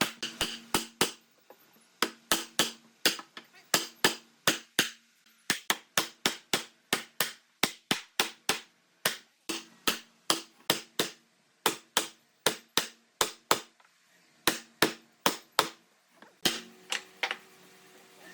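Repeated hammer blows, about three a second, in runs broken by short pauses, each strike leaving a brief low ring.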